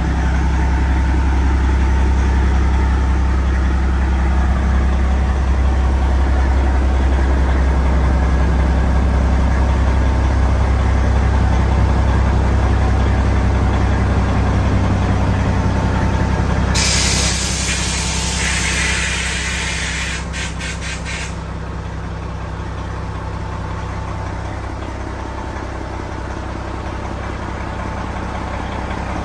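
Freightliner Classic XL semi truck's Detroit diesel engine idling with a steady deep rumble. About seventeen seconds in, a loud burst of compressed-air hiss from the truck's air brake system lasts around four seconds and ends in a few short puffs; the engine then runs on a little quieter.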